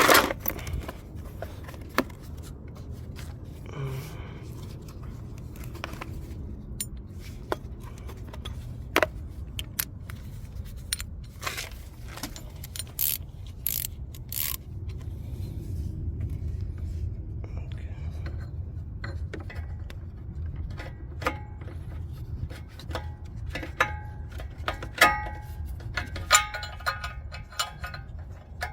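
Metal tools clinking and scraping, with bursts of rapid clicking from a socket ratchet, as an O2 sensor is worked loose from a car's exhaust manifold. A steady low hum runs underneath.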